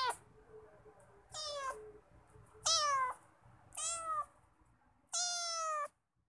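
A cat meowing again and again: four drawn-out meows about a second apart, each sliding down in pitch, the last one the longest.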